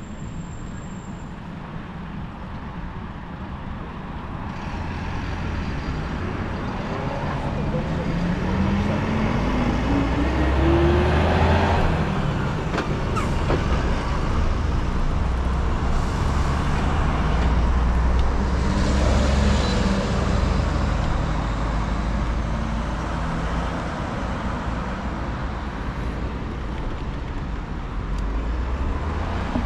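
Road traffic at a street intersection: cars driving past with a steady low rumble, swelling through the middle, and one engine rising in pitch as it accelerates from about seven to eleven seconds in.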